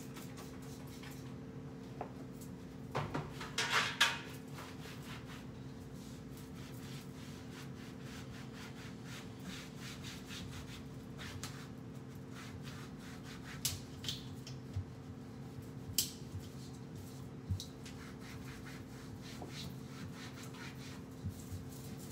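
Cloth wiping and rubbing on wooden kitchen cabinet doors, in repeated scratchy strokes. About three seconds in there is a short cluster of loud hisses. A steady hum runs underneath.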